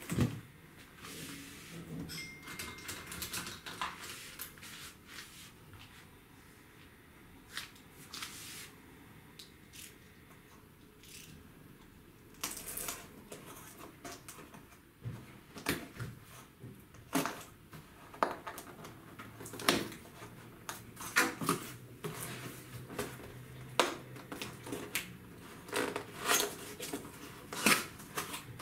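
Cardboard laptop box being opened: a utility knife slitting the packing tape, then the cardboard flaps being pulled apart, with scattered sharp clicks, scrapes and rustles that come thicker in the second half.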